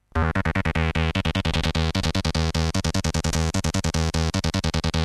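Chiptune music from the Commodore 128's SID sound chip, starting abruptly just after the beginning: steady bass notes under a fast, evenly chopped stream of synthesizer notes.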